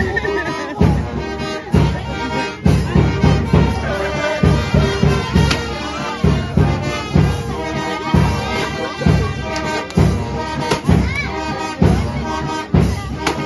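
Brass band music with a steady beat, a little more than one beat a second.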